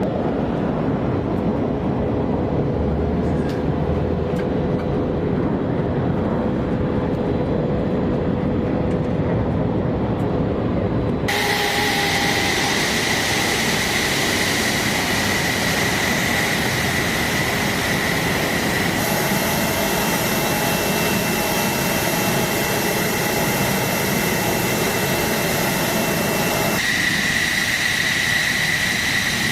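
Steady jet-engine noise with a high whine running through it. The sound changes abruptly about a third of the way in and twice more later, as separate recordings follow one another.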